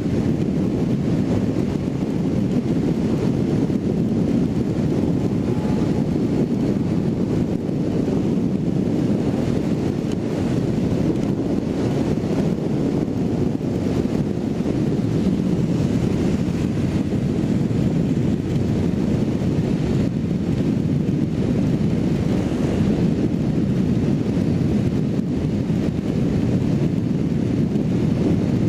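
Steady wind rushing over the microphone of a motorcycle riding at highway speed.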